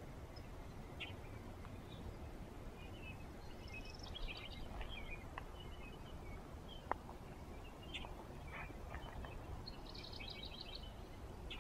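Outdoor ambience: small birds chirping in short runs of high notes, once about four seconds in and again near the end, over a steady low rumble, with one sharp click just past the middle.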